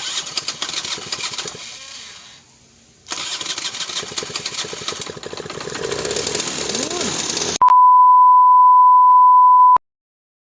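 Scooter engine running in two short clips. The first fades out; the second starts abruptly and grows louder. Then comes a steady high single-pitch beep for about two seconds, which cuts off suddenly.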